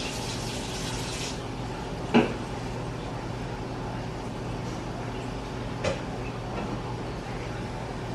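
A steady low hum, with two short sharp knocks about four seconds apart; the first knock is the louder.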